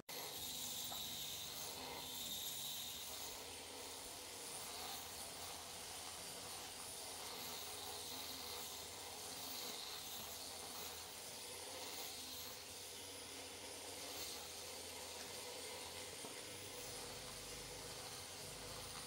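A steady background hiss, strongest in the high range, with no distinct events.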